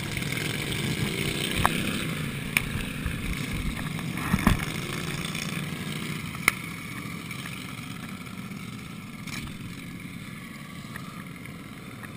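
Several racing lawn tractor engines running and revving as the mowers pull away, growing fainter toward the end, with a few sharp clicks along the way.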